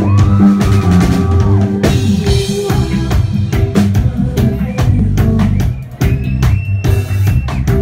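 Live reggae band playing: drum kit with snare and bass drum hits over a bass guitar line, with a long held high note near the start and another near the end.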